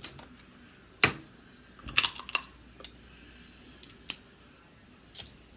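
Crab claw shell being cracked open: a sharp crack about a second in, a quick cluster of snaps around two seconds, then a few lighter clicks.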